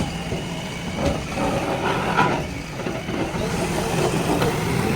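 Diesel engine of a JCB 3DX backhoe loader running steadily.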